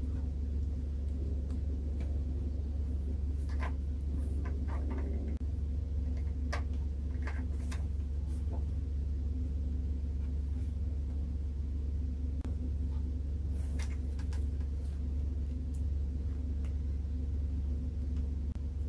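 Small clicks and rustles of hands twisting bare wire ends together and handling a small Bluetooth module circuit board, scattered over a steady low hum.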